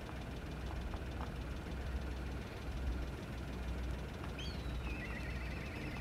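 A steady low engine-like rumble. Near the end a bird calls: a short falling whistle, then a quick trill of repeated notes.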